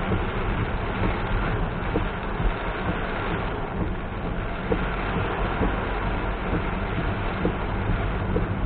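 A car driving in heavy rain: a steady low road rumble under an even wash of rain and wet-tyre noise, with faint scattered ticks.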